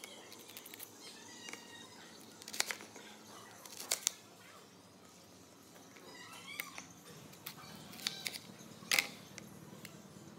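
Small knife cutting through pear and knocking on a plastic plate: a few sharp clicks, the loudest about 2.5, 4 and 9 seconds in, with lighter ticks between. A few short high chirps are heard about 1.5 and 6.5 seconds in.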